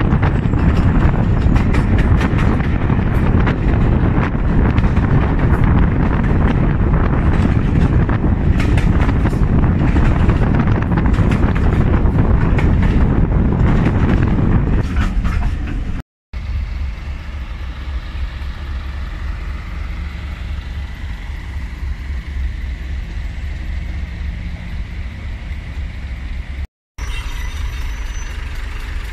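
Ride in a moving train coach with the window open: wind rushing past and the wheels clattering over the track, with frequent sharp clicks. About sixteen seconds in it cuts to a quieter, steady low rumble, broken once more near the end.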